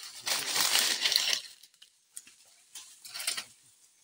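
Dry leaf litter and twigs crunching and rustling underfoot as people move through forest undergrowth: one long loud stretch of crunching, then a shorter, quieter one near the end.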